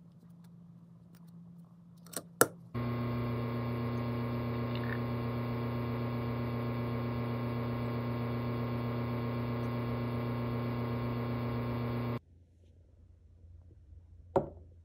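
Espresso machine pump running steadily while pulling a shot, starting abruptly about three seconds in just after two sharp clicks and cutting off about nine seconds later. Another click sounds near the end.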